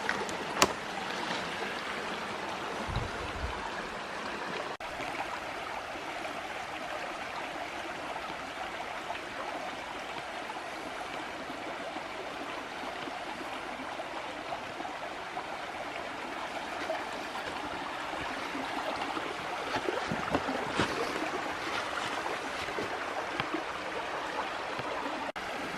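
Small forest creek running steadily, an even rush of water, with a few light knocks along the way.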